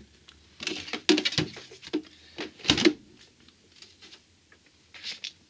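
Handling noise as a CD and a small black box are picked up off a towel-covered table: a few clicks, knocks and rattles, the loudest knock about two and a half seconds in.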